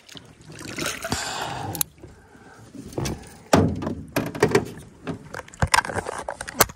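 Water splashing as a trout is scooped into a landing net, then a run of sharp knocks and clatters as the net frame and handle bump against the aluminium boat.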